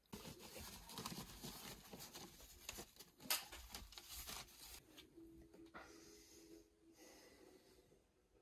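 Rustling and tearing of old house insulation as it is pulled out of the wall framing and thrown onto a spread-out sheet, with a sharp crackle about three seconds in. The noise fades away over the last few seconds.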